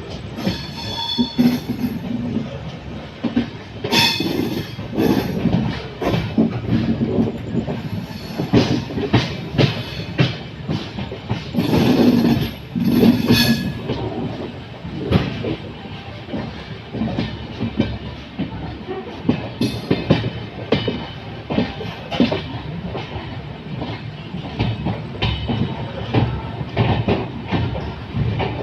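Passenger train running on the line, a steady rumble with wheels clattering over the rail joints. A few brief higher-pitched tones rise out of it, about a second in and again around twelve seconds in.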